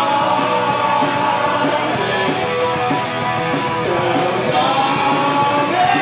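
A man and a woman singing a rock song together into one microphone, holding long wavering notes loudly over rock backing.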